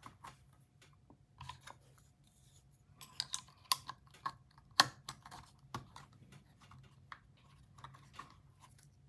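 Irregular light clicks and taps of small metal knife parts and tools being handled while a button-lock folding knife is worked on, with a few sharper clicks around the middle.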